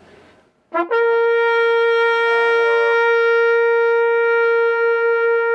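Military bugles sound a short lower pickup note about a second in, then hold one long, steady note.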